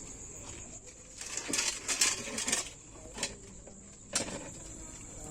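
Night insects, crickets, shrilling steadily at a high pitch, with a few short, louder unclear noises over it, bunched around the middle and once more a second or so later.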